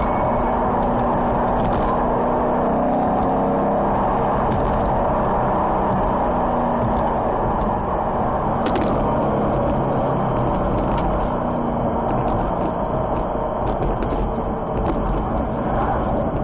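Ford Mustang running, heard from inside the cabin: a steady drone of engine and road noise with faint light ticks now and then.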